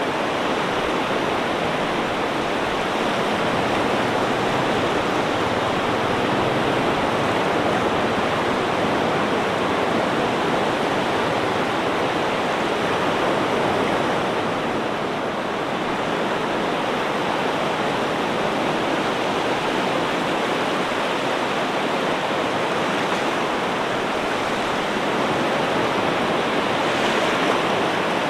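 Ocean surf making a continuous, steady rush of water, with only a slight ebb about halfway through and no separate breaking waves standing out.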